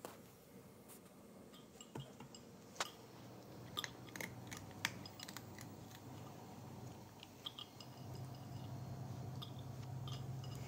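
Cats crunching dry kibble from a bowl, a scatter of small sharp crunches and clicks, densest in the first half. A low steady hum comes up about eight seconds in.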